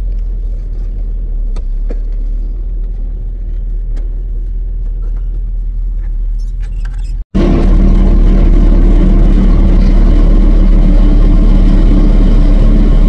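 Motor vehicle engine running steadily with a low rumble. About seven seconds in it cuts abruptly to a louder, closer engine hum.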